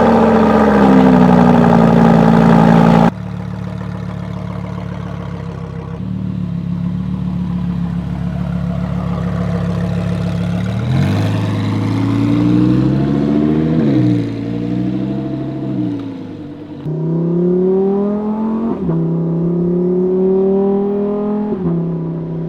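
Lamborghini Huracán EVO's 5.2-litre V10 just after a cold start, loud at first and dropping suddenly to a steady idle about three seconds in. It is blipped up and down a few times around the middle. Near the end it steps up and holds a slowly rising high idle before settling back.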